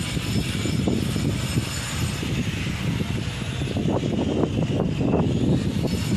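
Vacuum pumps running steadily as they evacuate the refrigerant circuits of a four-compressor air-cooled condensing unit: a continuous mechanical drone with a faint high whine.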